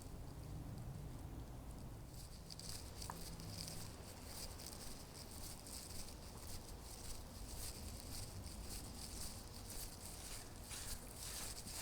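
Faint, irregular patter of light rain and wet footfalls over a low steady rumble; the patter thickens about two and a half seconds in.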